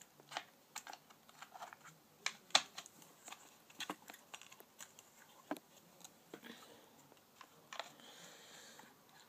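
Irregular light plastic clicks and taps with short spells of rustling: hands handling an RC truck's battery pack and its compartment.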